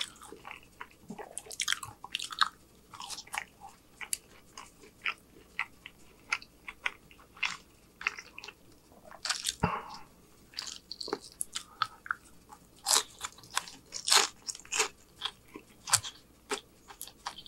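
A person eating fried fast food, chewing and biting onion rings and fries with repeated crisp crunches and wet mouth sounds.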